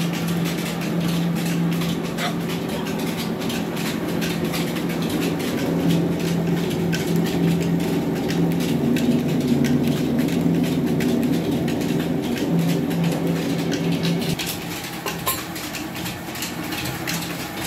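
Rice mill machinery running: a steady motor hum under a dense rattle, with grain pouring from the chute into metal tins. The hum stops about fourteen seconds in, leaving the rattle.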